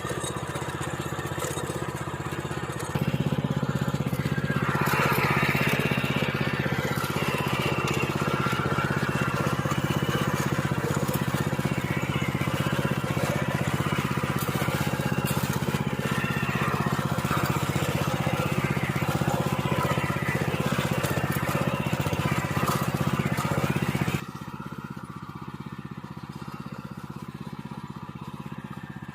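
Small engine of a motorized plough running steadily. About three seconds in it jumps to a louder, higher setting, with a rough grinding noise from the tilling of stony soil. It drops back to a lower, quieter run near the end.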